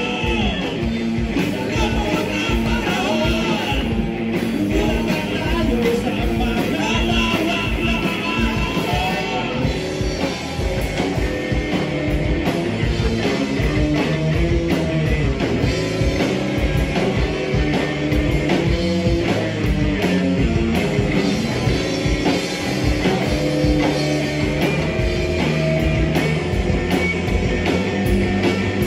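A live rock trio playing a song: electric guitar, electric bass and a drum kit keeping a steady beat, with a sung vocal over it.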